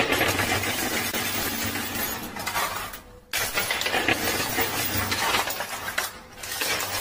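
Poker chips clinking and clattering on a coin pusher machine's playfield as chips drop in and are shoved along. The clatter runs on thickly with a brief gap about three seconds in.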